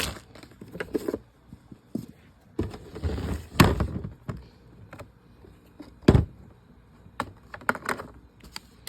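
A mini fridge and its contents being handled: rustling, scattered knocks and clicks, and one heavy thump about six seconds in.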